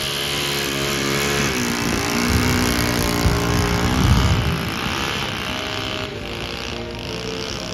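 A Saito 72 four-stroke glow engine on a model airplane running on the ground, its pitch rising as the throttle opens about a second and a half in, then easing back down about four seconds in.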